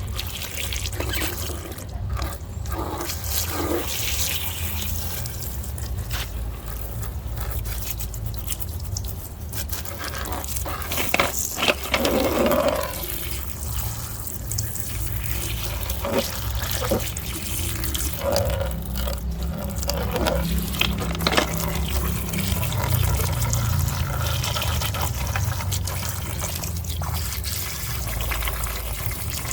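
Water running and splashing as muddy toy vehicles are washed, with scattered sharp knocks and a steady low hum underneath.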